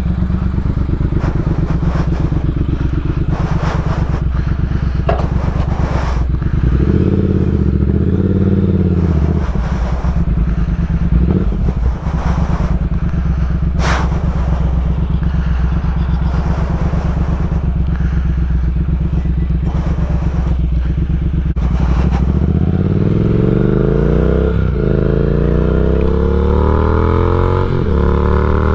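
Triumph Speed Twin's 1200 cc parallel-twin engine, running through a decat X-pipe and slip-on silencers. It idles with one brief blip of the throttle about a quarter of the way in and a sharp click near the middle, then pulls away and accelerates, the revs rising with two gear changes near the end.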